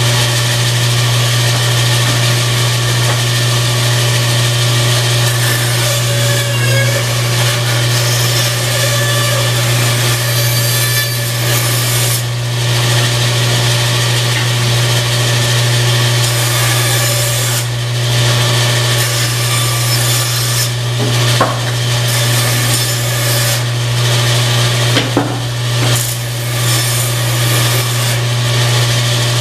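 Freshly rebuilt Delta 14-inch bandsaw, with a new upper wheel bearing and thrust bearings, running with a steady motor hum while its blade cuts small pieces of wood. The cutting noise comes and goes, stopping briefly several times as pieces are pulled back and fed in again.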